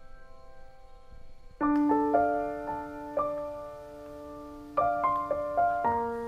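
Background solo piano music: a slow, gentle piece with chords struck a few times and left to ring and fade.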